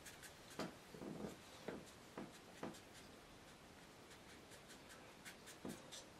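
Faint strokes of a paintbrush dragged across watercolour paper: about six short strokes in the first three seconds, a lull, then a few more near the end.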